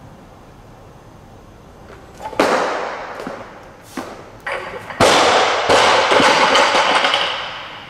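A 105 kg barbell with rubber bumper plates is jerked overhead at about two and a half seconds with a sharp stamp and clatter. About five seconds in it is dropped from overhead and crashes onto the lifting platform, the loudest sound here, and the plates bounce and rattle for a couple of seconds after.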